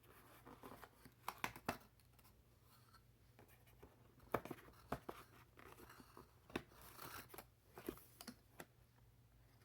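Faint, scattered rustles, scrapes and light taps of a cardboard tablet box and its paper inserts being handled while it is unpacked.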